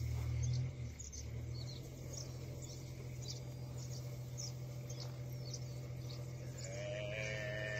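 A newborn African buffalo calf bleating, a long wavering cry starting near the end, under attack by hyenas. Short high chirps repeat about twice a second over a steady low hum.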